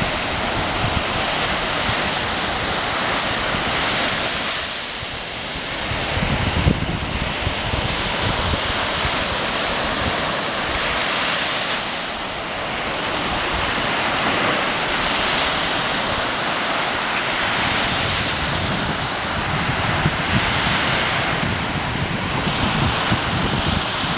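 Small waves breaking and washing up on a sandy shore: a steady rush of surf that swells and eases every few seconds. Wind buffets the microphone in low rumbles.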